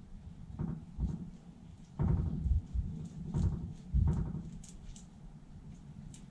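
Irregular dull knocks and rustling as a stiff, cut-down brush dabs brushable seam sealer onto a car's underbody panels, with a few short ticks in the second half.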